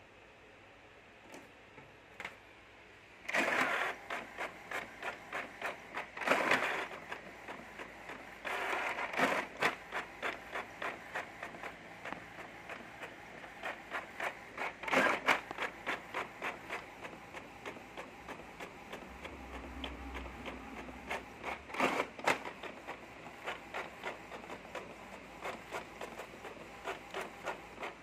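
Epson L550 inkjet printer running a print job. After about three seconds of quiet the mechanism starts, with a quick regular pulsing of about two to three strokes a second as the print-head carriage shuttles back and forth. Louder grinding bursts come every few seconds.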